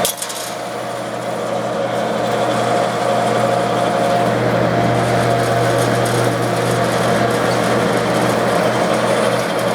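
Lockformer Quadformer HVAC rollformer running: its 3 hp electric motor and drive rolls give a steady mechanical hum, with a brief click at the start.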